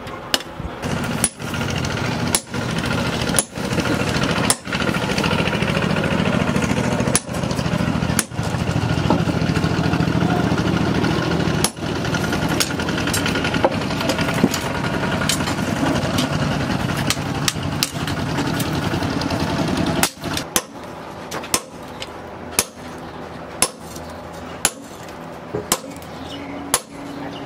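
Hand hammer striking a red-hot steel blade tang on an anvil, single sharp blows about a second apart over a loud steady machine noise. About twenty seconds in the steady noise stops and the hammer blows come quicker, nearly two a second.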